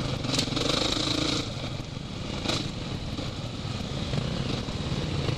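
Off-road motorcycle engines running at riding speed, heard close from the rider's own bike with a steady engine drone. Two brief hisses come about half a second and two and a half seconds in.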